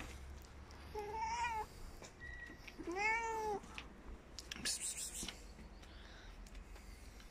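A domestic cat meowing twice, about a second in and again about three seconds in, the second call rising then falling in pitch. A brief burst of noise follows in the middle.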